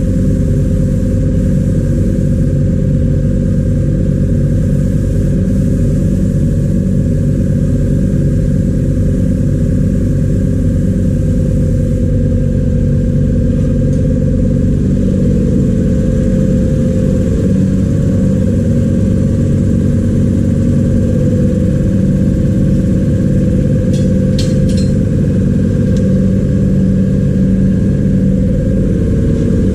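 Refrigeration vacuum pump running steadily, evacuating a refrigerator's sealed refrigerant system through a hose. A few light clicks near the end.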